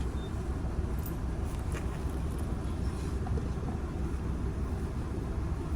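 Car engine idling steadily, a low even rumble heard from inside the car, with a few faint clicks.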